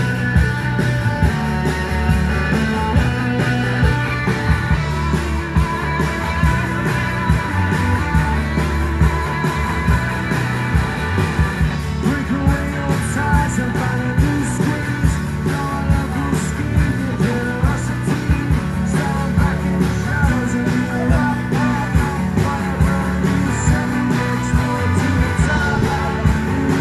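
Indie rock band playing live through the PA: electric guitars, bass guitar and drums on a steady beat.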